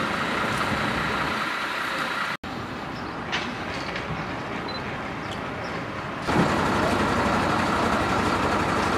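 Steady running of an idling fire engine. It cuts off abruptly about two and a half seconds in, comes back quieter, and is louder again after about six seconds.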